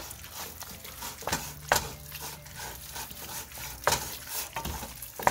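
A utensil stirring chopped tomatoes into browned ground beef and pork in a pan, with several sharp knocks and scrapes against the pan.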